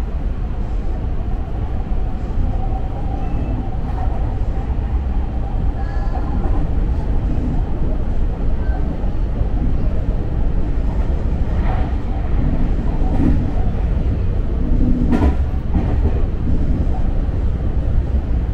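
Electric commuter train running at speed, heard from inside the front car: a steady low rumble of wheels on rail. A faint whine is heard in the first few seconds, and a few sharp wheel clacks come in the second half.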